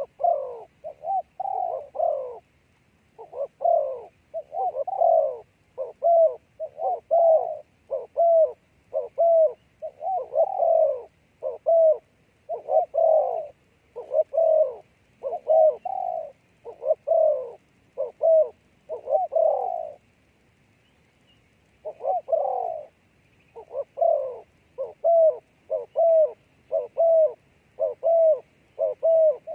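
Dove cooing in long runs of short, evenly repeated coos, a little over one a second, with a break of about two seconds about two-thirds of the way through.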